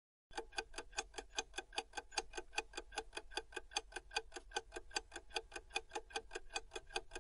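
Clock-ticking sound effect of a quiz countdown timer, running while the viewer guesses: quick, even ticks, several a second, starting a moment in.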